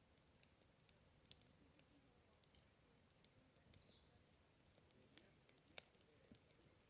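A songbird sings one short, rapid trill about three seconds in, over a very quiet background of faint scattered campfire crackles, two of them sharper pops near the end.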